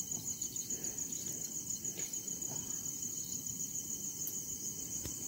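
Night crickets chirping in a steady, fast-pulsing high trill.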